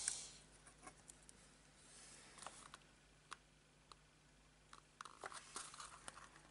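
Near silence with faint scattered ticks and taps: the tip of a craft knife lifting small adhesive pearls off their plastic sheet and pressing them onto a paper box.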